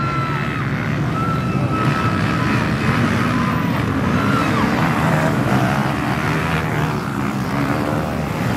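Several youth racing quads (ATVs) revving hard together, their engine pitches overlapping and rising and falling as they accelerate.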